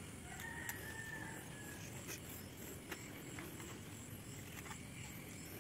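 Faint sounds of a small knife cutting through a passion fruit's rind: a few soft clicks over a quiet outdoor background.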